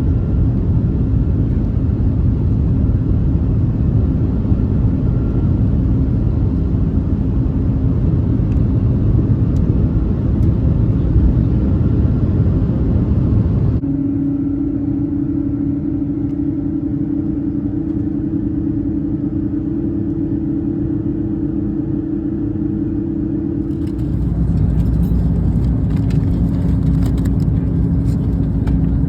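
Steady low rumble of a vehicle in motion, with a steady hum over it. The sound changes abruptly about 14 and 24 seconds in.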